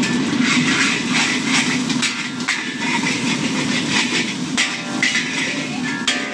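Beaten eggs sizzling in a hot oiled wok, with a steel spatula scraping and knocking against the wok as they are scrambled. A steady low hum runs underneath.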